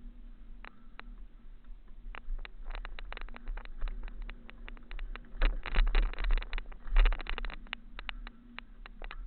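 Mountain bike rattling and clattering over a rocky trail: many sharp knocks, densest in two bursts about five and a half and seven seconds in, over a low steady rumble. The tyres are pumped too hard, so the bike bounces.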